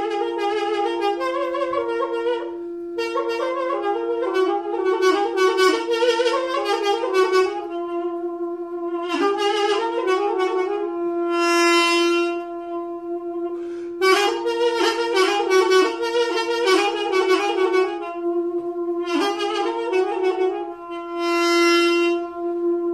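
Instrumental break in a Turkish folk song: a reedy wind-instrument melody played in phrases over one steady, unbroken drone note.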